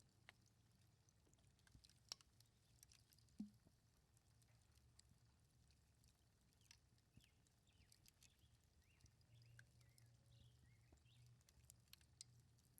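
Near silence: faint outdoor background with scattered soft ticks and a few faint short chirps about halfway through.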